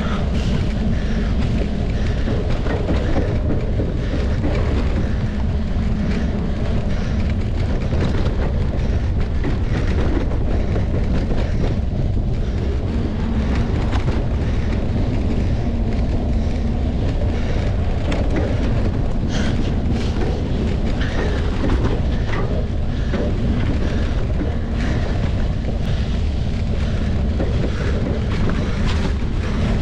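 Wind rumbling steadily on an action-camera microphone while riding a mountain bike, with a few faint knocks from the bike over rough ground.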